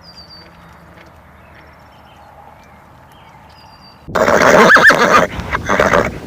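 A faint outdoor hush with a couple of faint high chirps, then about four seconds in a horse neighs loudly, a whinny that rises and falls in pitch and trails off.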